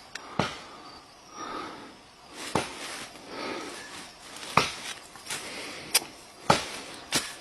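Sharp, separate knocks like an axe chopping wood in the forest, striking irregularly about every one to two seconds, with soft rustling in between.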